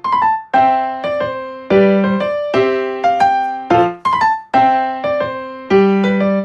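Background piano music: light chords and short melodic phrases, each struck and left to decay.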